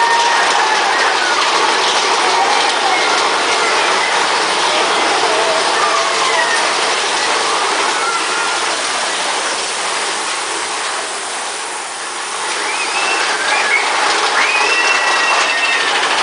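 Roller coaster train running along its track: a loud, steady rush of wheel and wind noise that eases briefly about twelve seconds in, with a few short squeals gliding up and down over it.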